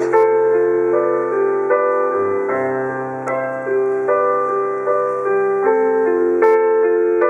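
Piano playing a slow, gentle melody over held chords, the notes changing about every half second to a second.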